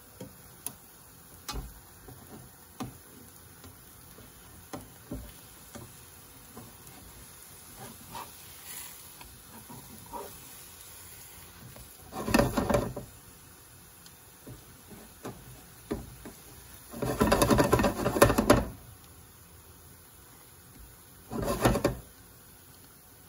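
Cookware sounds while a large pancake cooks in a frying pan: scattered light taps and clicks, then three short rough scraping bursts of the pan and a utensil, the longest lasting about a second and a half.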